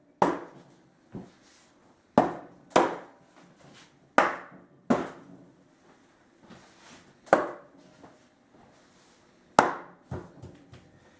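Rubber-headed mallet striking the softwood table legs to seat them firmly on the cross pieces: about eight separate sharp knocks, irregularly spaced, each with a short ringing tail.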